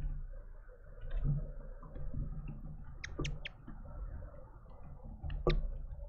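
Birds feeding on a wooden bird feeder: sharp pecking clicks and taps, three in quick succession about three seconds in and one more near the end, over a low rumble.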